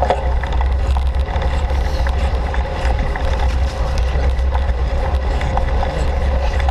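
Steady wind rumble on the camera microphone from a bicycle ridden at speed, with tyre noise on the path and small, frequent ticks and rattles from the bike.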